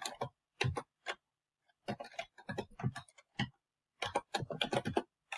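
Computer keyboard keys clicking as an equation is typed: irregular runs of separate keystrokes, with a pause of about a second near the start.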